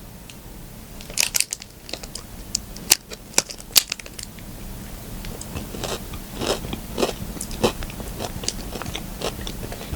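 Biting into and chewing a crunchy peanut butter and jelly Fit Crunch protein bar: a few sharp crunches in the first four seconds, then steady chewing about twice a second.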